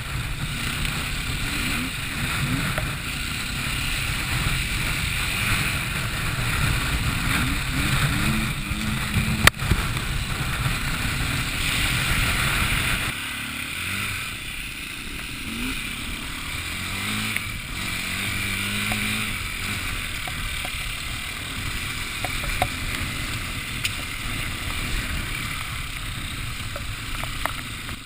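A motor vehicle's engine running, its pitch rising and falling, under a steady rushing noise, with a single sharp click about nine seconds in.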